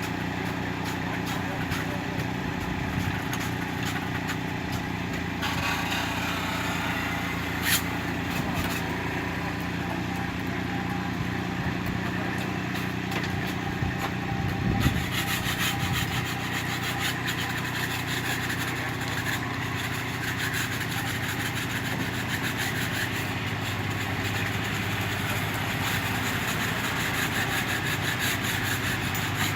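Small excavator's engine running steadily under work, with a sharp knock about eight seconds in and a heavier thump about fifteen seconds in.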